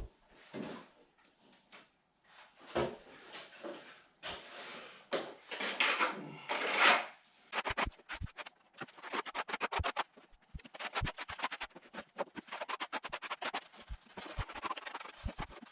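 Hand-plastering work on breeze blocks: a trowel scraping wet plaster for several seconds, then a long run of quick, irregular taps and clicks.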